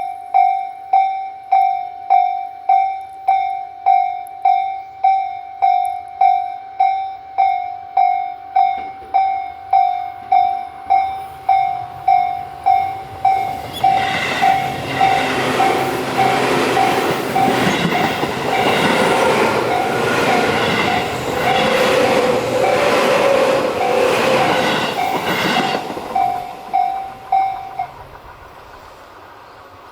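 Japanese railroad-crossing warning bell dinging about twice a second. About 14 seconds in a train passes through the crossing, its wheels and running noise loud over the bell for about twelve seconds; soon after the train has gone the bell stops, near the end.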